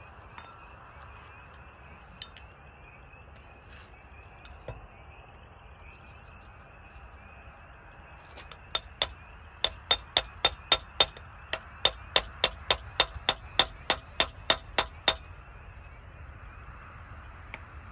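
Hammer blows on steel: some twenty sharp, ringing strikes at about three to four a second, from about nine seconds in to about fifteen seconds in, driving a stuck piston pin (wrist pin) out of a connecting rod on a Continental IO-470 engine.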